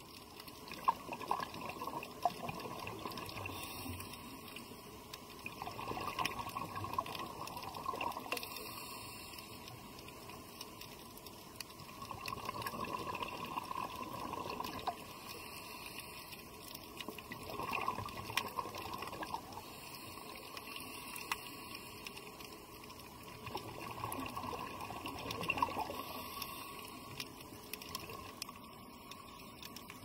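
Underwater recording of a diver's exhaled air bubbling up in slow, regular bursts every five or six seconds, with scattered faint clicks in between.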